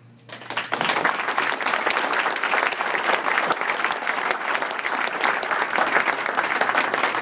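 Audience applauding: many hands clapping, starting about half a second in, swelling within a second and then holding steady.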